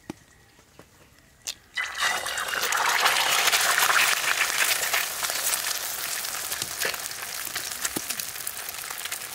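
A few faint clicks as an eggshell is cracked over a wok. About two seconds in, a sudden loud sizzle as the egg drops into hot oil in the steel wok, easing off slowly as it fries.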